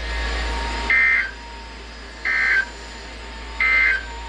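Emergency Alert System end-of-message tones off a weather radio: three short, identical bursts of two-pitch SAME digital data, about 1.4 seconds apart, marking the end of the alert broadcast. A faint steady tone and hiss from the receiver run underneath.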